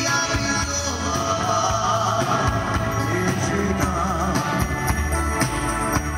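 Dance music with a singing voice over a steady beat and bass.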